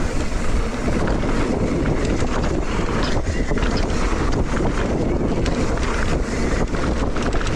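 Wind buffeting the microphone of a mountain bike moving fast downhill on a dirt singletrack, over a steady low rumble of tyres on dirt, with frequent short clicks and rattles from the bike.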